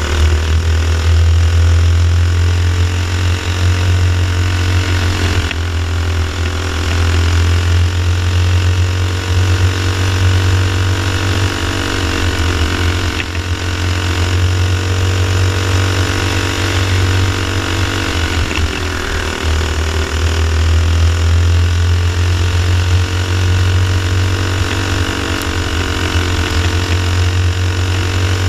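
Racing kart engine, a Rollin Dirty Racing build, running hard at speed. Its pitch dips and climbs again several times, most deeply about nineteen seconds in.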